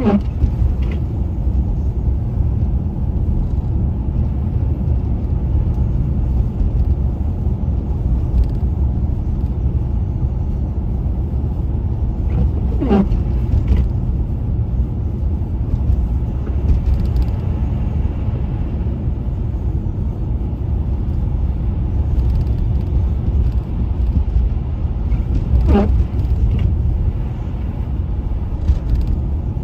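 Car driving, a steady low road and engine rumble, with three brief squeaks spaced about thirteen seconds apart.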